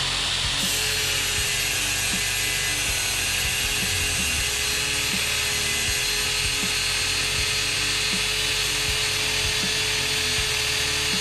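DeWalt DCG414 60 V FlexVolt brushless cordless angle grinder with a 6-inch flap disc grinding a steel bar under steady load. It runs evenly throughout, with a steady whine that comes in about half a second in.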